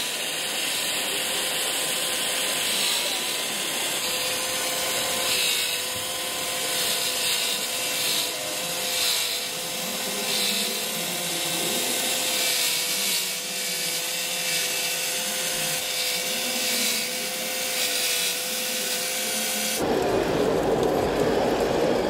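Electric drive of a radio-controlled John Deere forage harvester model whining at a steady, slightly wavering pitch over a steady hiss while it runs and blows chopped grass into a trailer. Near the end the sound changes suddenly to a louder, lower rushing noise.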